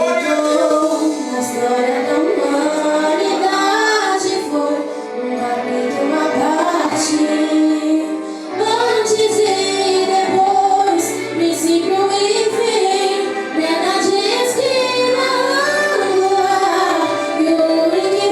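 A worship song sung by female voices over instrumental accompaniment, with a held low bass note entering about halfway through.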